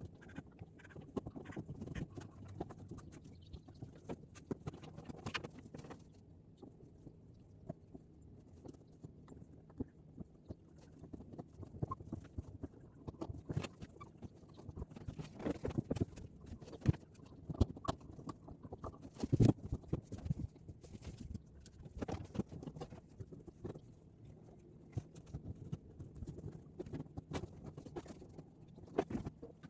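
Irregular knocks and thuds from hand demolition work on a house's wooden wall and window frame, scattered and uneven, with the loudest knock about two-thirds of the way through.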